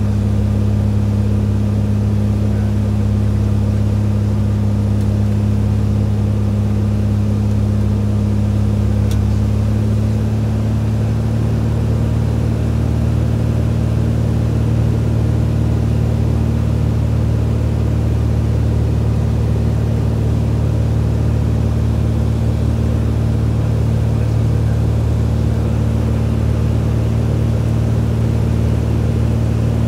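Cessna 210's six-cylinder piston engine and propeller droning steadily in cruise descent, heard from inside the cockpit. The pitch of the drone shifts slightly about eleven seconds in.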